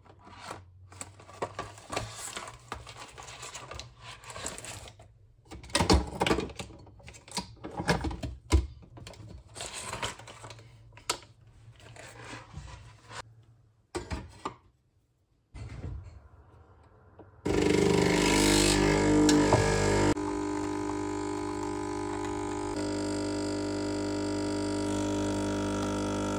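Scattered light clicks and knocks with a brief silent gap. About seventeen seconds in, louder sustained music chords begin and change a couple of times.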